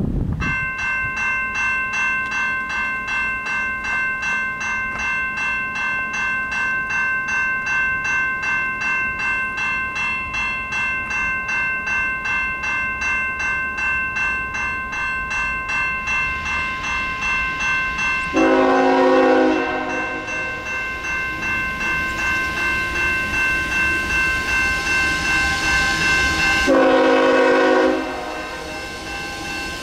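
Railway crossing bell starting up and ringing steadily in rapid, regular strokes as the signals activate. About 18 seconds in, an approaching train's horn sounds a long blast, then a second one about 27 seconds in, with a third starting at the very end. The train's running noise grows between the blasts.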